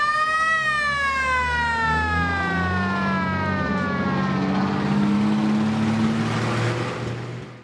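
Fire engine siren: a motor-driven siren whose pitch rises to a peak about half a second in, then winds slowly down over about four seconds. An engine runs beneath it. Everything cuts off abruptly at the end.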